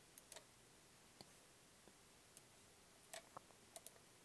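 Faint computer mouse clicks: a scattered handful of single clicks, two of them in quick succession near the end.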